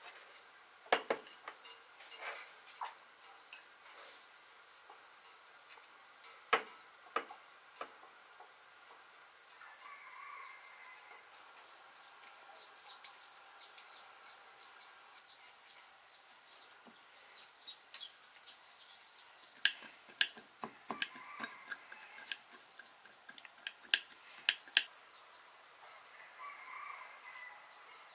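Sharp clicks and clinks of chopsticks, metal tongs and a knife against a ceramic plate, in scattered groups: a few about a second in, more at six to eight seconds, and a dense run from about twenty to twenty-five seconds. Underneath is a faint steady high insect hum and a few faint bird calls.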